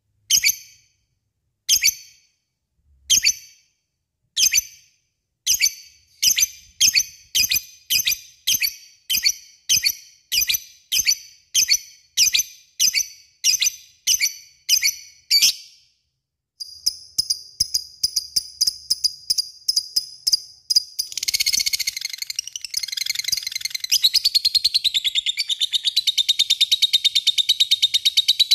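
Lovebird calling: sharp chirps, at first about one every second and a half, speeding up to about two a second. After a short pause comes a fast ticking series, and then, about three-quarters of the way in, a long unbroken rapid chattering trill, the lovebird's 'ngekek'.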